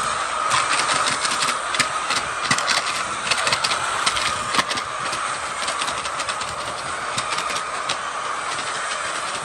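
Machinery running with a steady clatter: a constant hum-like tone and many quick, sharp clicks, thickest in the first few seconds.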